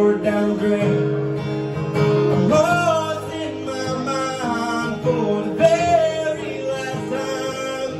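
Solo acoustic guitar played live, with a man singing a few long, drawn-out notes over it.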